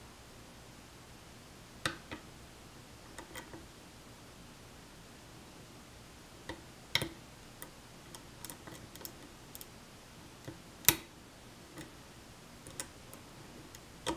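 Scattered small metallic clicks and ticks from a pick lifting the pin stacks in a challenge lock cylinder while a tension wrench turns the plug counterclockwise; the sharpest clicks come about two, seven and eleven seconds in. These clicks are the pins giving feedback as they bind and set.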